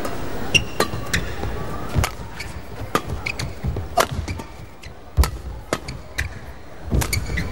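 Badminton rally: sharp racket strikes on the shuttlecock about once a second, with brief shoe squeaks on the court between them, over steady arena background noise.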